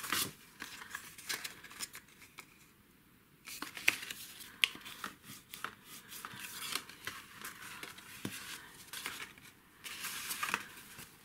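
Cardstock rustling and sliding over a craft mat as the sheets are handled and creased with a bone folder, with scattered light taps and scrapes; it goes quiet for a moment about two seconds in.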